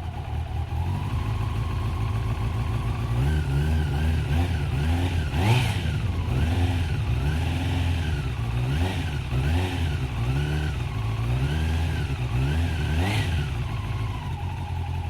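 1980 Honda CM400E's freshly rebuilt parallel-twin engine idling, then revved up and let fall back repeatedly, about once a second. Two sharp cracks are heard, about five and a half and thirteen seconds in.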